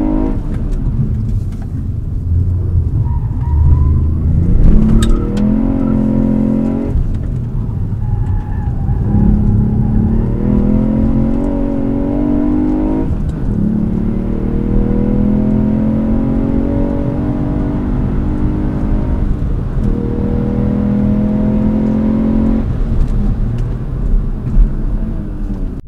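Ford Fiesta ST Performance's 1.5-litre turbocharged three-cylinder engine at full throttle on a fast circuit lap. The revs climb hard and drop at each gear change, several times over.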